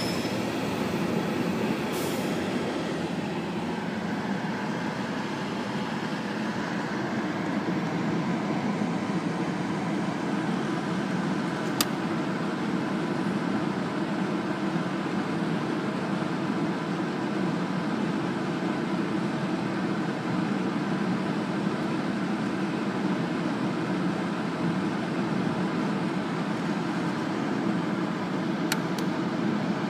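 A freight train of double-stack intermodal well cars rolling past steadily, with a continuous rumble of steel wheels on rail. A few sharp clicks stand out, about two, twelve and twenty-nine seconds in.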